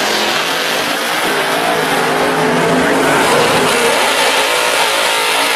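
First-generation Camaro drag car's engine revving as it rolls forward out of its burnout. Its pitch rises several times in the first three seconds, over the running of a second drag car's engine.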